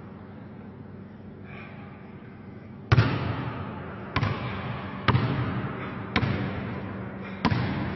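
A basketball dribbled on a hardwood gym floor: slow bounces about a second apart starting about three seconds in, each with an echoing ring-out, the first bounce the loudest.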